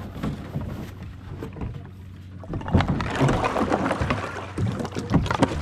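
A canoe being paddled: water sloshing and splashing at the hull. It grows louder about three seconds in, with a few sharp knocks.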